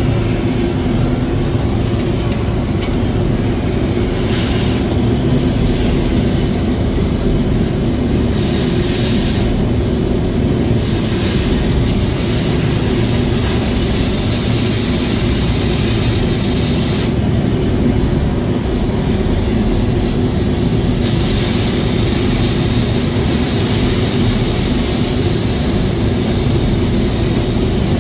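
A heavy engine running steadily at a constant speed, with a hiss on top that drops out twice for a few seconds.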